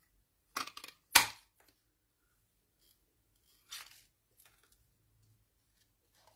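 Handheld craft paper punch working through a strip of cardstock: a quick cluster of clicks and paper rustle, then one sharp, loud clack about a second in, and another shorter crunch near four seconds.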